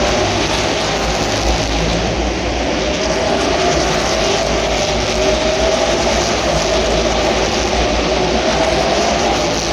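NASCAR Cup Series stock cars' V8 engines running on track: a loud, unbroken wall of engine noise from the field, with one engine note slowly rising in pitch through the middle.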